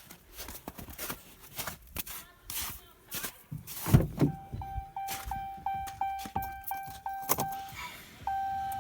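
A thump about four seconds in, then the truck cab's electronic warning chime: a pitched chime repeating about three times a second, going over to a steady tone near the end.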